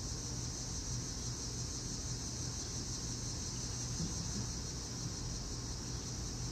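Steady background noise: a constant high hiss over a low hum, with no distinct events.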